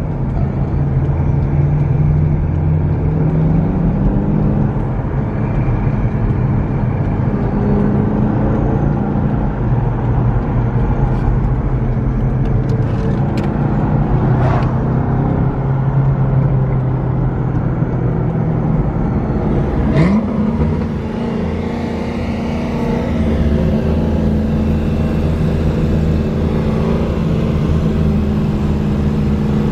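Engine and tyre noise heard inside the cabin of an EcoBoost Ford Mustang driving at steady speed, a constant drone. About twenty seconds in there is a sharp click and the engine note shifts, then it carries on steadily.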